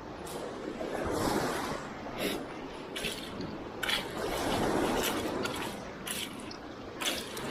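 Shallow Baltic seawater sloshing and washing, swelling twice, with several short sharp splashes.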